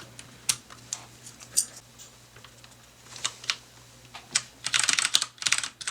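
Filco Majestouch 2 Ninja mechanical keyboard with Cherry MX Brown switches: scattered single clicks for the first few seconds, then fast typing, a dense run of key clicks, from about four and a half seconds in.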